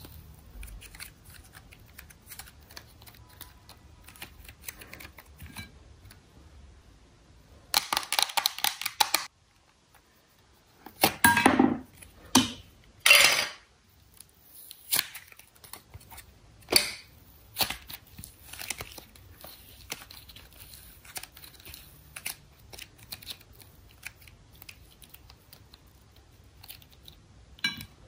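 Hands squeezing and peeling soft slime out of clear plastic wrapping: sticky crackles and plastic crinkling throughout. There are louder, denser crackling bursts about a third of the way in and twice around the middle.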